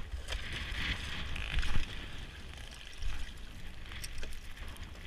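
Icy lake water splashing and sloshing as a scuba diver in a dry suit and fins drops into a hole in the ice, with the loudest splash about two seconds in.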